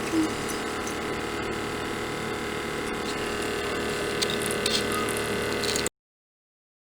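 A small electric motor running with a steady hum, cutting off abruptly about six seconds in.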